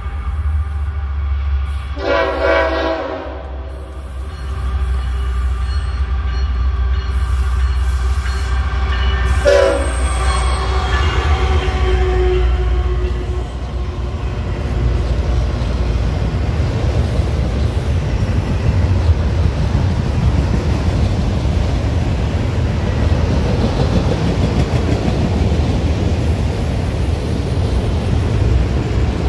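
Freight train passing, its locomotive horn sounding twice: a longer blast about two seconds in and a short one about ten seconds in. After that comes the steady rumble of a long string of autorack freight cars rolling by close at hand.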